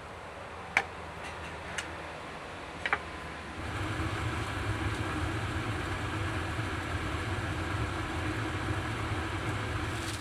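Steady low mechanical hum of a vehicle running, growing louder about three and a half seconds in, with a few sharp clicks in the first three seconds.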